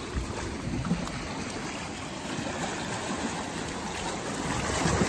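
Steady rush of seawater with a low rumble on the microphone.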